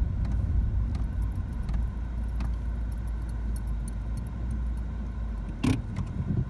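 Car cabin noise while driving slowly over a grass field: a steady low rumble of engine and tyres, with scattered light ticks and one louder knock about five and a half seconds in.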